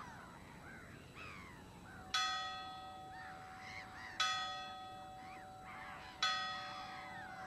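A church bell strikes three times, about two seconds apart, each stroke ringing on and fading over a lingering hum. Birds call throughout.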